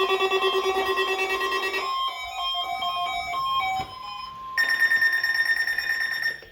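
Electronic alarms of weather alert radios going off. A fast-pulsing beep runs for the first couple of seconds, then a stepping run of short beeps of different pitches, then a higher pulsing beep that cuts off just before the end.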